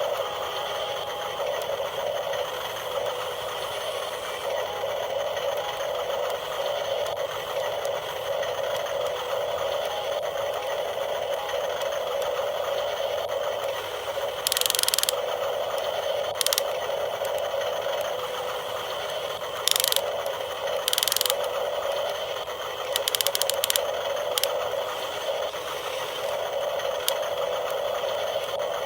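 Small electric motors and gearboxes of a 7.2 V radio-controlled mini excavator running steadily with a gear whir. A few short, louder bursts of clatter come in the second half.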